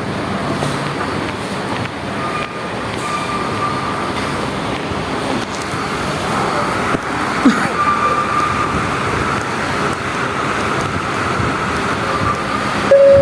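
Steady din of road traffic, with faint thin high tones coming and going.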